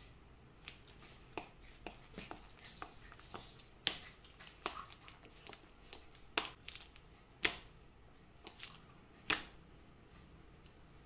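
Block-heeled sandals tapping on a terrazzo floor as the wearer steps and shifts her feet: irregular light clicks, with about four sharper knocks.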